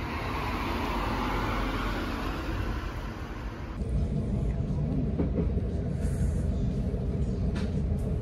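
Road traffic noise with a car going by. About four seconds in it cuts to the steady low rumble of a moving train, heard from inside the carriage.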